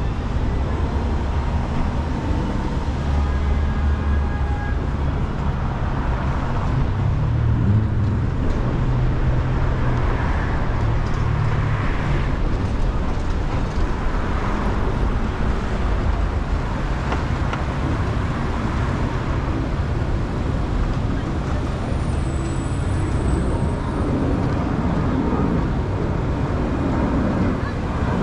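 City street traffic: a steady, low rumble of car engines and road noise.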